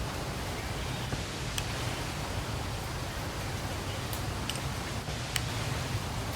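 Steady outdoor background noise with a low hum underneath, and a few short high clicks scattered through.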